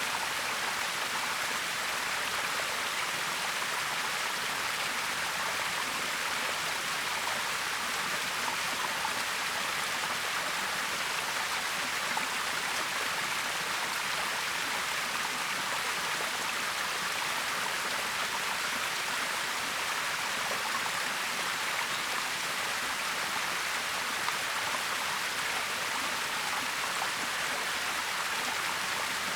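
A waterfall's falling water rushing steadily, an even hiss that holds without a break.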